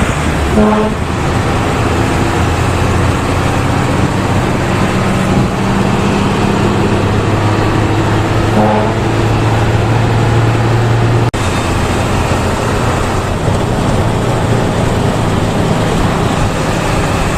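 Cabin noise inside a moving intercity bus: the engine drones steadily under road and traffic noise, and the engine note shifts in pitch partway through. There is a brief dropout about eleven seconds in.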